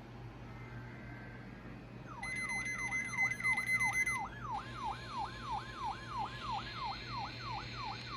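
Weather alert radio receivers setting off their alarms for an alert test, starting about two seconds in. The main alarm is a siren that sweeps down in pitch about three times a second; a steady high beep sounds with it for about two seconds, and then a higher warbling tone takes its place.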